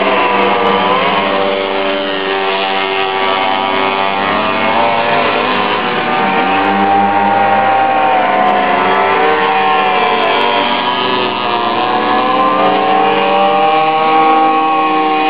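Several minibike (pocket bike) engines running at high revs, their pitch rising and falling over and over as the riders accelerate and back off around the course.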